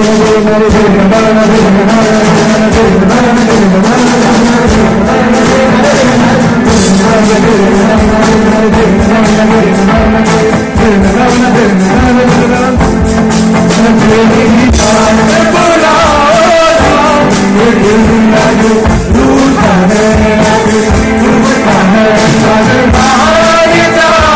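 Live band playing a medley of Hindi songs: acoustic guitar, keyboard and drums with a steady beat, and singing over it.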